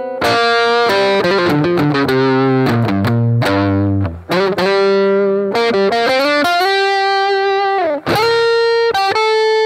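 Rickenbacker 330 electric guitar with toaster pickups played through fuzz: a melodic line of held, distorted notes, with a note sliding down in pitch about eight seconds in.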